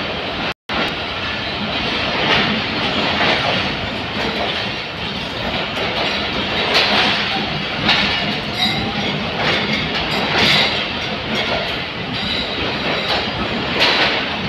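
Passenger train coaches rolling slowly along a station platform on arrival, the wheels clacking irregularly over rail joints, with a few short, high wheel squeals.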